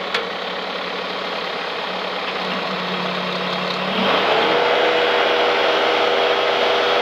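2007 Bobcat T190 skid steer's diesel engine running at a low idle, with a short click right at the start. About four seconds in it is throttled up, the pitch rising and then holding steady at higher revs.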